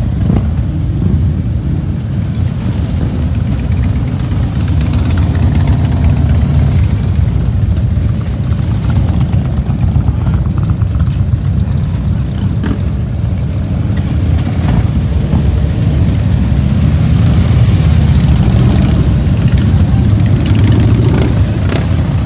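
Many V-twin cruiser motorcycles running at low revs as they ride slowly past in a line, their engines overlapping into a loud, steady low rumble.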